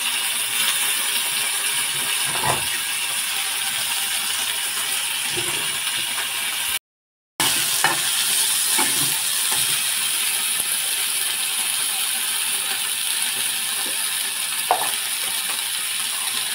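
Dried prawns sizzling in hot mustard oil in a wok, with a steady hiss and a few sharp clinks of a steel spatula against the pan. The sound cuts out for a moment about seven seconds in.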